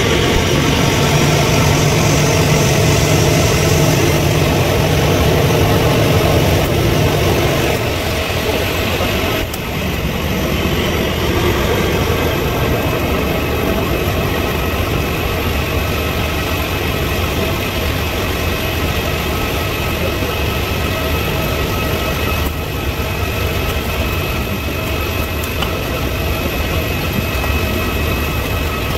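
Steady drone of idling engines and machinery, with a high, steady whine over it. A lower hum drops away about eight seconds in.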